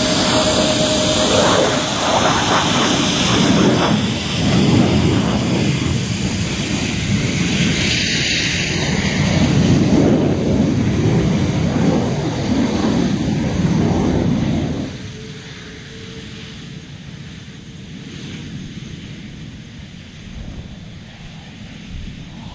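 Airbus A380's four jet engines running loud and steady as the airliner moves along the ground, the rumble swelling and easing. About fifteen seconds in the sound drops sharply to a much quieter hum with a faint steady whine.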